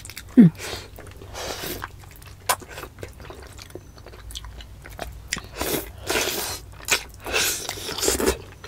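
Close-miked eating sounds: chewing, wet smacking and sucking on gelatinous pieces of balbacua beef stew eaten off the bone by hand, with scattered clicks and several louder wet bursts in the second half.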